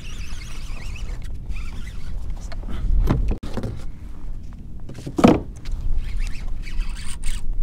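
Spinning reel being cranked against a hooked fish, with handling knocks on the rod and kayak and wind rumbling on the microphone; a brief pitched whine about five seconds in.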